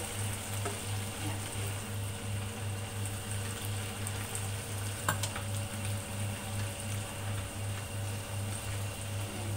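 Vegetables and shrimp sizzling in a pan on an induction cooktop as they are tossed with chopsticks, over the cooktop's low hum pulsing about three times a second. A single sharp knock about five seconds in.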